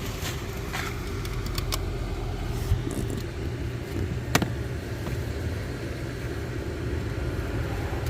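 Sharp plastic clicks and small knocks of dashboard trim being pried and worked loose, the loudest a crisp snap about four seconds in, over a steady low rumble.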